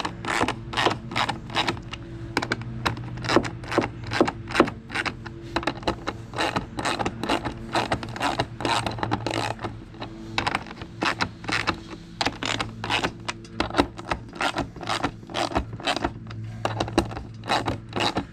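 Ratchet wrench clicking in quick uneven runs, about two to three clicks a second, as nuts are tightened onto the dump cart's bolts.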